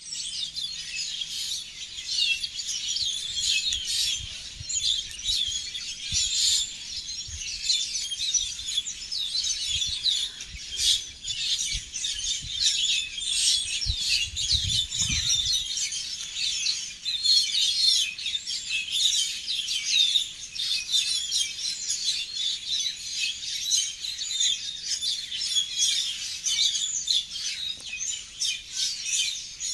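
A chorus of many small birds chirping and tweeting, with short overlapping calls and trills that never stop.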